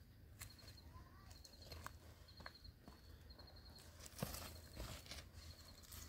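Faint footsteps on stony dirt and a few sharp knocks of rocks being picked up and set down on stone, the loudest about four seconds in.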